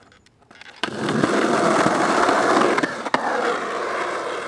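Skateboard dropping into a concrete ditch: a clack as the wheels hit the concrete about a second in, then loud, steady rolling of the wheels over rough concrete. A sharp knock comes about three seconds in, and the rolling then fades as the board moves away.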